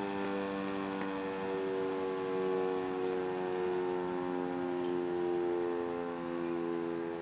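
Sentry 10V outdoor warning siren sounding its test: a sustained multi-tone wail that eases slightly lower in pitch, swelling and fading gently as it goes.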